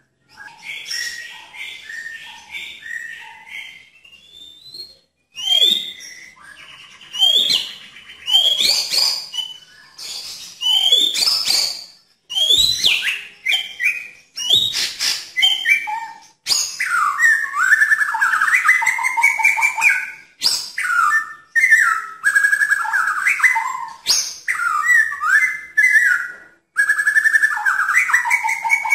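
White-rumped shama (murai batu) singing loudly: short repeated notes at first, then a string of loud whistles that sweep steeply down in pitch, then, from about halfway through, a long run of fast, rattling warbled phrases.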